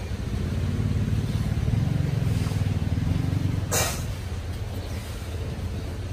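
A motor vehicle engine running close by, its low hum swelling over the first few seconds and then easing off. A short, sharp hiss cuts in about halfway through.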